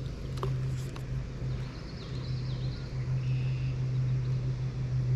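Steady low motor hum over a low rumble, with faint high chirps about two seconds in.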